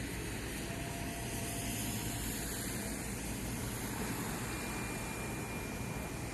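Steady background drone of boat engines and harbour noise under an even hiss, with a faint high whine starting about two-thirds of the way through.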